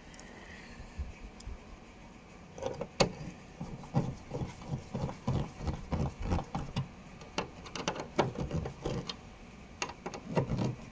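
Irregular light clicks, taps and knocks of dashboard parts and hardware being handled and fitted, starting about two and a half seconds in.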